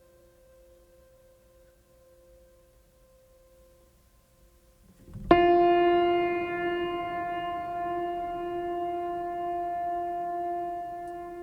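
Ambient music: faint held tones, then about five seconds in a loud sustained note with a sharp attack comes in and holds, fading slowly.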